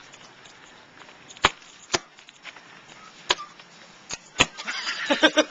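Ice crust cracking and crunching underfoot: single sharp cracks a second or so apart, then a quicker run of crunches near the end.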